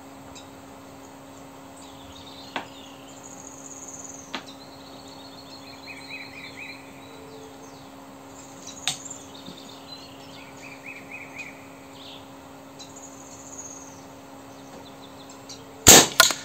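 Birds and insects chirp throughout, with a few sharp clicks as the rifle is handled and loaded. Near the end comes the loud shot of a PCP air rifle (URKO III with a Lothar Walther barrel) firing a slug, heard as a quick double crack.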